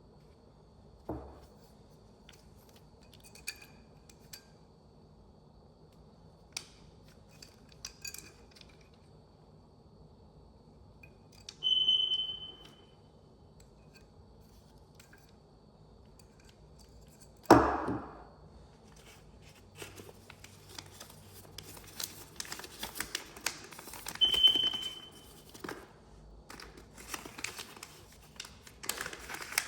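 Scattered clicks and handling noises with a sharp knock about halfway through, two short high-pitched electronic beeps, one near the middle and one later, and busier crinkling and rattling handling noise toward the end.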